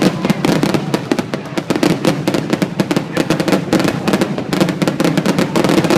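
Fireworks grand finale: a dense, rapid barrage of aerial shell bursts and crackling reports, many bangs every second without a break.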